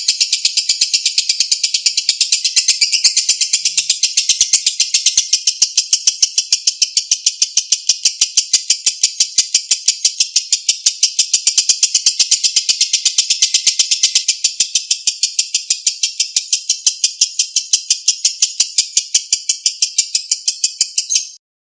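Lovebird giving a long 'ngekek': an unbroken, rapid run of shrill chattering notes that stops abruptly near the end.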